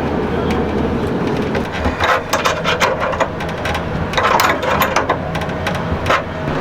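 Hands fitting a hose clamp onto an air conditioner's water hose: two spells of clicking, scraping and rattling, starting about two seconds in and again about four seconds in, over a steady low hum.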